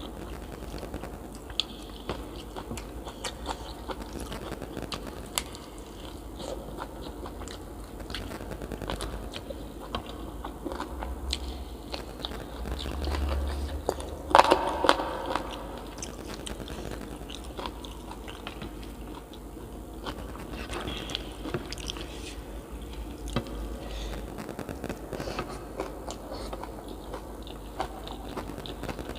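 A person eating close to the microphone: steady chewing and biting with small crunching clicks, and one louder noise about halfway through.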